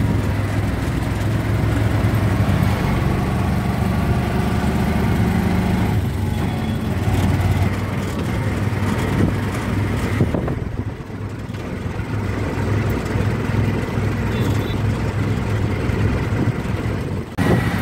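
Auto-rickshaw engine running steadily as the three-wheeler drives along, heard from inside the open passenger cab with road and wind rush. The rushing noise drops away about ten seconds in and comes back near the end, while the engine hum carries on.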